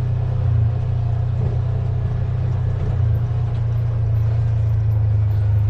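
Side-by-side buggy's engine running at a steady pace under way, in low-range four-wheel drive, with a strong low hum.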